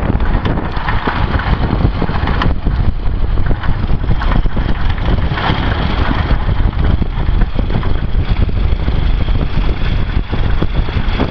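1999 Ford 7.3 Power Stroke turbo-diesel V8 running, with a steady high-pitched turbo whistle over the engine noise.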